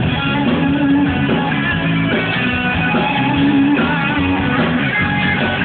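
A live rock band playing steadily, with guitar to the fore and no singing.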